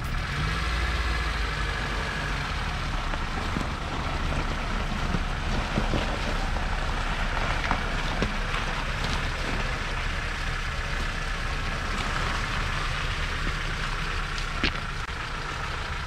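An engine running steadily, with a constant low hum and a rushing noise over it, and a few light knocks; the sharpest knock comes about three-quarters of the way through.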